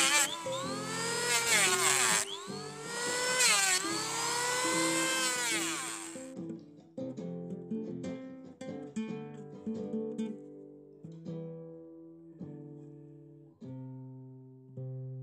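Electric hand planer running and shaving the end of an old timber railway sleeper, its motor pitch sagging and recovering as the blades bite, with a brief stop about two seconds in. It cuts off about six seconds in and plucked guitar music takes over.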